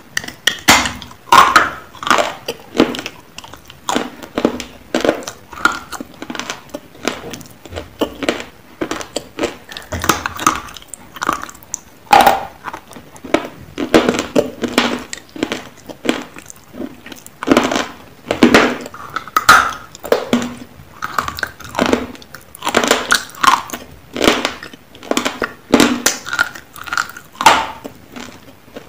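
Close-up biting and chewing of hard, chalky nakumatt chunks: many dry, sharp crunches coming in irregular clusters, with crumbling between bites.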